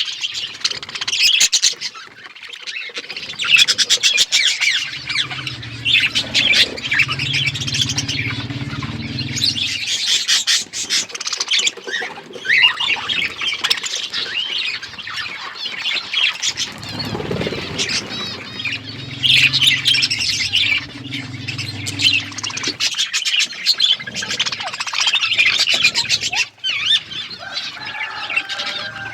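A flock of budgerigars chattering and chirping without a break, with sharp squawks among the calls. A low steady rumble sounds underneath twice, for about five seconds each time.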